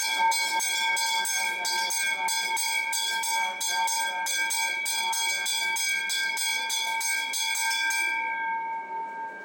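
Temple bell rung in quick, even strokes, about four a second, to accompany a lamp aarti; the strokes stop about eight seconds in and the bell's ring fades.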